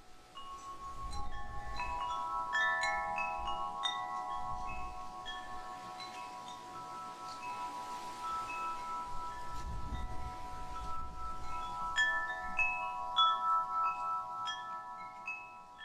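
Wind chimes ringing: metal chimes struck at random, their clear tones ringing on and overlapping, with flurries of strikes a few seconds in and again near the end. A low rumble swells twice underneath.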